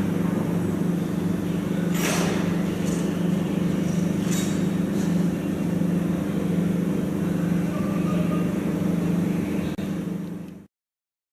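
Steady low machine hum with a couple of sharp knocks, cutting off abruptly near the end.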